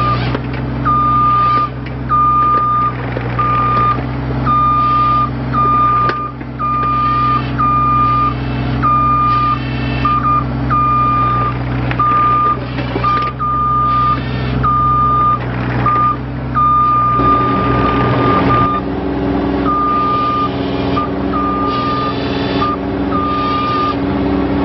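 Bobcat E32 mini excavator's diesel engine running with its alarm beeping steadily, about one beep every three-quarters of a second, plus a few knocks from the machine. About two-thirds of the way through the engine note rises under load and the beeps pause briefly before starting again.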